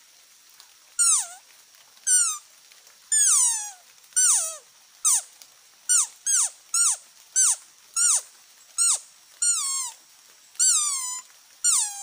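Traditional hand-held deer call blown by mouth: a run of about fourteen short, high bleats, each sliding steeply down in pitch, about one a second and quicker in the middle. It imitates a deer to lure deer in during a hunt.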